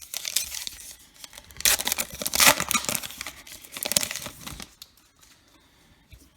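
Baseball card pack wrapper being torn open and crinkled by hand, a crackly tearing and rustling that is loudest about two seconds in and dies away after about four and a half seconds.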